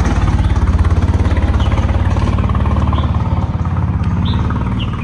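A motor engine running loudly and steadily close by, a fast even chugging, beginning to fade away at the very end.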